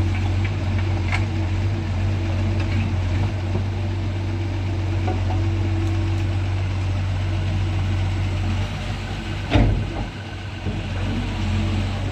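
Doosan DX140 excavator's diesel engine running steadily with a low drone. A single loud thump about nine and a half seconds in is the loudest moment.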